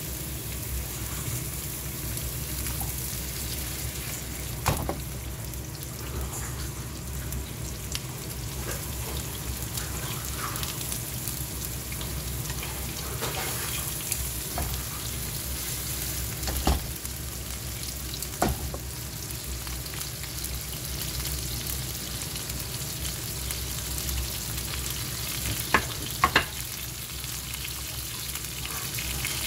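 Thin-sliced pork belly rolls sizzling steadily in hot oil in a frying pan, with a few sharp clicks of chopsticks against the pan and plate as more rolls are laid in.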